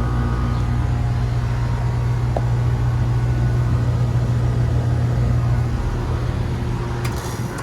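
Central air-conditioner outdoor condenser unit running with a steady low hum and fan noise. Near the end it shuts down with a loud noise and the hum dies away.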